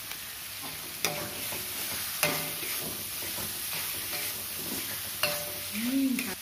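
Spice paste sizzling in an aluminium wok while a metal spatula stirs and scrapes it, with sharp clanks of the spatula against the pan about a second in, a little after two seconds and a little after five seconds.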